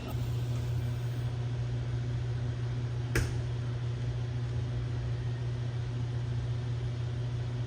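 Heat detector test tool running steadily, its fan blowing air over resistive heating coils with a low hum. One sharp click about three seconds in.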